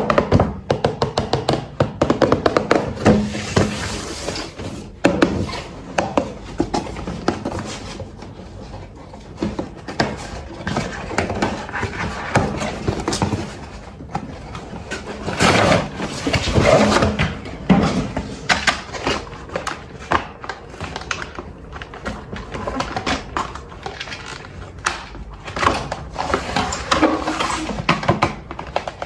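Packaging being handled and opened: a stream of knocks, clicks and rustling from cardboard and plastic, with background music in the first few seconds.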